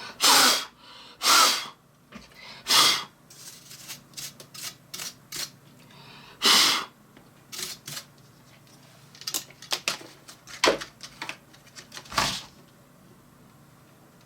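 Paintbrush sweeping the last dust out of the inside of a Mac mini G4: five loud short whooshing strokes, with light clicks and rustles between them.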